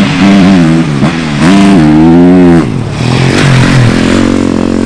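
Motocross bike engine revving hard, its pitch rising and falling with the throttle. It holds high for about a second midway, then drops and runs lower and steadier.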